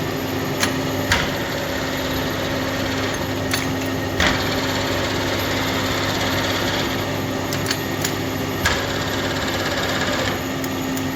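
1A625 screw-cutting lathe running under power with the carriage feed engaged: a steady machine hum with a few sharp clicks scattered through it.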